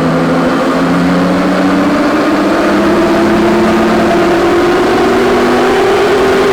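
Jeep Wrangler's 3.6 Pentastar V6 running under load on a chassis dynamometer, its revs climbing slowly and steadily during a dyno pull.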